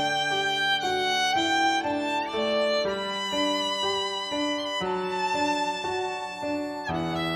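Instrumental background music: a melody of held notes changing about every half second over sustained low notes.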